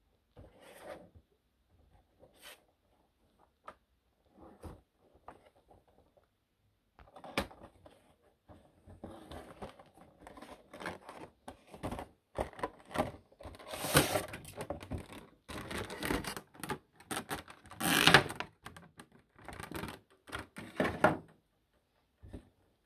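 Funko Pop cardboard box being opened and its clear plastic blister tray handled: rustling, scraping and crinkling with sharp clicks. Sparse at first, it grows busier and louder about halfway through.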